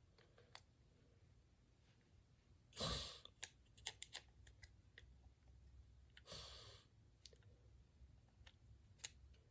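Faint small clicks and taps of plastic toy parts being handled and fitted, with two sighing breaths about 3 and 6.5 seconds in, the first the louder.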